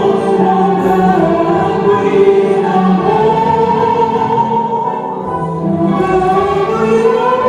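Two women singing together into microphones, a slow song with long held notes.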